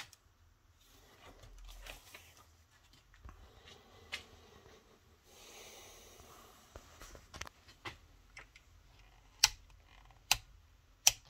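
Light handling rustles and faint clicks, then three sharp clicks roughly a second apart near the end as the rotary selector switch on a Soviet-era radiation meter is turned through its detents.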